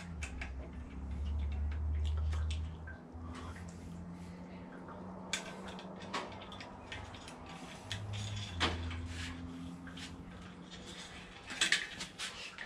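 Scattered light clicks and knocks of small parts being handled as a cable is fitted to a bicycle handlebar, over a low background hum.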